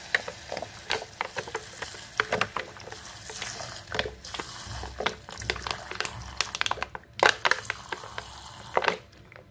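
Water poured from a plastic bottle into a hot saucepan of shrimp frying in spice paste and oil: a steady sizzling hiss with many sharp crackles and pops as the water hits the hot oil, loudest a little past halfway.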